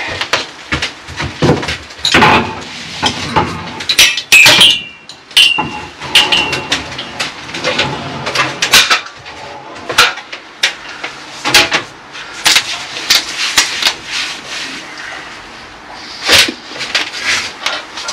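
Steel acrow props, an aluminium stepladder and wooden planks being handled and taken down: an irregular string of clanks and knocks, with short ringing metallic clangs about four to five seconds in.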